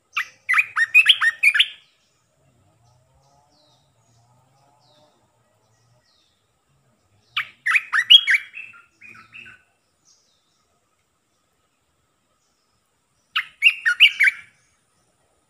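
Olive-winged bulbul singing: three short bursts of quick, warbling, chattering notes a few seconds apart, each lasting about one to two seconds.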